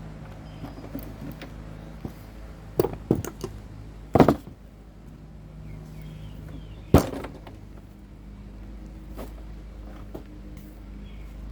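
Knocks and clunks of a new wheel and hand tools being worked onto a self-propelled lawn mower. There is a cluster of knocks about three seconds in, the loudest, a double knock, just after four seconds, and a sharp single knock about seven seconds in, all over a steady low hum.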